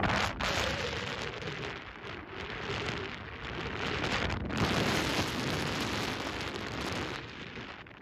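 Wind buffeting the microphone on an exposed shore: a rough, uneven rushing that eases near the end.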